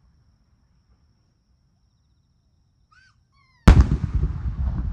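Near silence, then a single loud firework shell burst near the end, its boom rumbling and echoing as it dies away.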